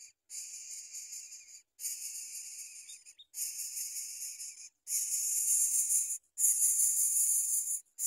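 Greater coucal nestling hissing as it begs while being fed: five harsh, wheezy hisses, each a little over a second long with short breaks, growing louder toward the end.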